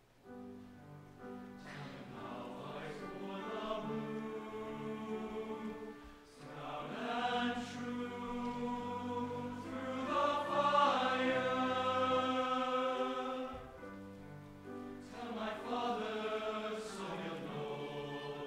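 All-male high-school tenor-bass choir singing sustained phrases in parts, accompanied by piano and violin. The phrases swell and ease, loudest a little past halfway through.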